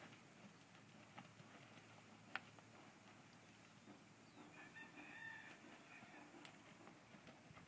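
A rooster crows once, faint and distant, about halfway through, lasting about a second and a half. The rest is near silence with a few faint ticks.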